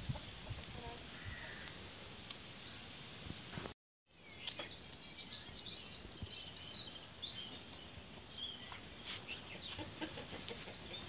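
Outdoor ambience with small birds chirping in short high notes and chickens clucking, with a few light ticks. The sound drops out completely for a moment a little under four seconds in.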